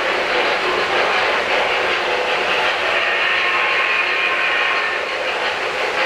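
O-scale three-rail model 4-8-4 steam locomotive, a Western Pacific GS-2, and its freight cars running past on the track: a steady rumble and clatter of wheels on rail.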